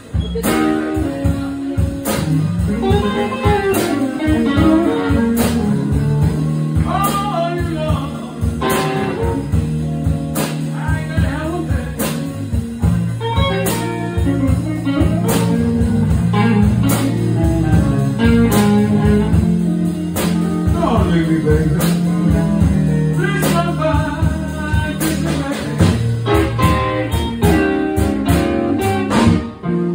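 Live band music played on guitars, continuous and steady in loudness.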